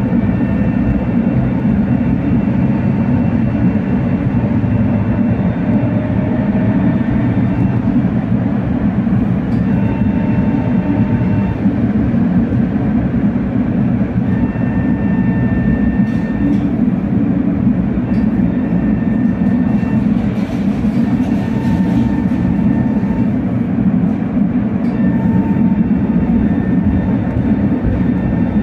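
Tatra T3R.PLF tram set running along street track, heard from inside the tram: a steady rumble of wheels on rails, with a faint whine that comes and goes.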